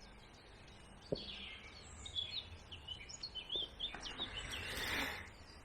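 A small bird chirping and twittering in a run of short high notes, over faint outdoor background noise, with a light click just after a second in and a soft rustle near the end.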